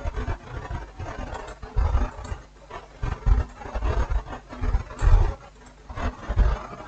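Irregular dull bumps and rustling handling noise, several soft knocks spread unevenly.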